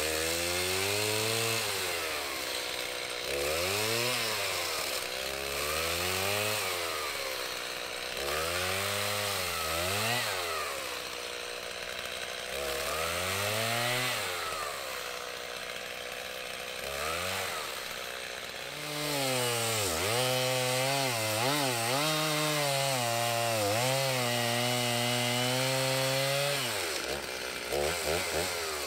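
Gas chainsaw cutting dead white oak. It revs up and drops back in a series of short rises and falls, then from about nineteen seconds in it is held at high revs for around seven seconds, dipping slightly as it works through the log. It finishes with a few short throttle blips.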